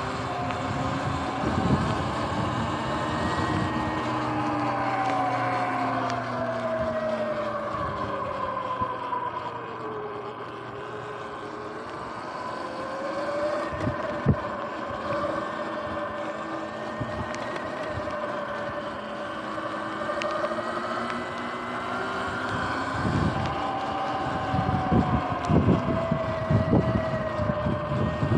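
Sur-Ron electric dirt bike under way, its motor and drive whining in pitch that rises and falls with speed, over wind noise on the microphone. Near the end a run of thumps and buffets cuts in.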